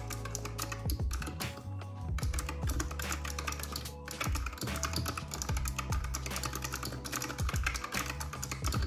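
Fast typing on a compact backlit mechanical keyboard, a dense run of key clicks that thins out briefly twice, over background music with sustained bass notes.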